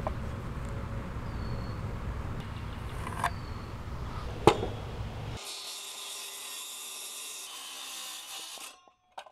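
A low background rumble with a couple of sharp clicks while a 2x6 board is measured and marked. Then, about five seconds in, a DeWalt cordless circular saw cuts the 2x6 to length with a steady whine, stopping shortly before the end, followed by one click.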